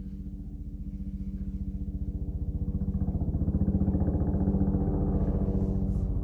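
Helicopter flying over, its rotor throbbing in a rapid, even beat. It grows steadily louder as it approaches.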